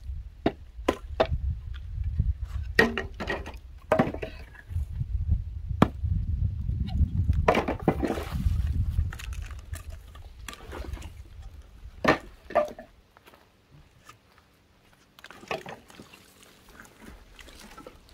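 Wooden knocks and clunks of logs being lifted, set down and knocked together as firewood is stacked: a dozen or so sharp hits, the loudest a little after the midpoint, over a low rumble that dies away in the second half.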